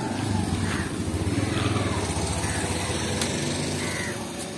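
Small step-through motorcycle's single-cylinder engine running with a fast low putter as the bike pulls away, loudest in the first couple of seconds.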